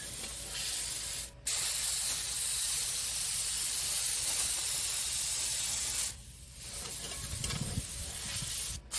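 Metal-cutting torch hissing steadily as it cuts small brace pieces from steel scrap. The hiss cuts out briefly about a second and a half in, for about half a second around six seconds in, and again near the end.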